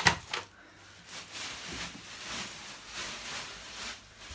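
Packaging and plastic vacuum parts being handled: two sharp clicks near the start, then a run of soft rustles.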